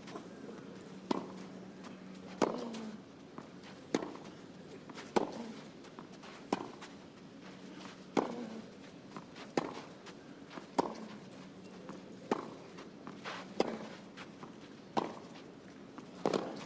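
Tennis racket strokes in a long baseline rally on a clay court: about a dozen sharp pops of strings on ball, one every second and a half or so, as the two players trade shots.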